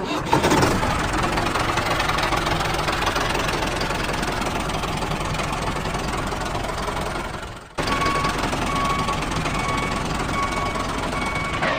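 Steady running engine noise that fades about seven and a half seconds in and cuts straight back in, after which a regularly repeating beep sounds over it.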